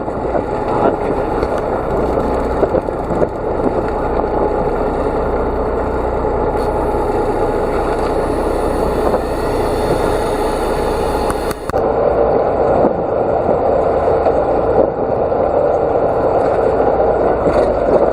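A boat under way, its engine running steadily under a haze of wind and water noise. The sound shifts abruptly about twelve seconds in.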